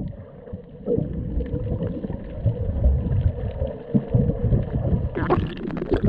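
Muffled underwater sound from a camera held below the surface: a low rumble and soft thumps of water churned by a swimmer's strokes. A brighter, splashy burst comes about five seconds in.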